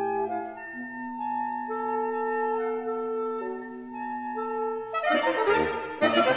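Saxophone quartet of soprano, alto, tenor and baritone saxophones playing slow held chords whose notes shift one voice at a time. About five seconds in, the quartet breaks into a louder, busier passage with sharp, rhythmic attacks.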